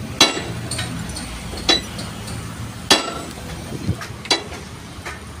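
A sledgehammer strikes the end of a long steel bar that is held as a drift against the rear hinge of a tipper truck's dumper body, working the hinge pin loose so the body can be taken off. Three heavy, ringing metal-on-metal blows come about one and a half seconds apart, then a few lighter knocks near the end.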